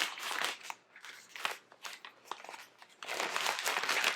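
Thin plastic protective wrap crinkling as it is peeled off a new iPad: short rustles, then a longer stretch of crinkling about three seconds in.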